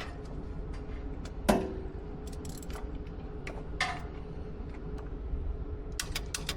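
Electric winch clicking as it is powered but fails to turn, a few sharp clicks over a steady low hum: the loudest about a second and a half in, another near four seconds, and a quick run near the end. The owner traces the clicking to the winch's motor, not its solenoid.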